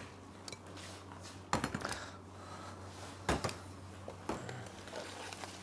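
A few clinks and knocks about one and a half seconds in, then one sharp knock a little over three seconds in: a ceramic plate being fetched and set down on a stainless-steel counter. A steady low hum runs underneath.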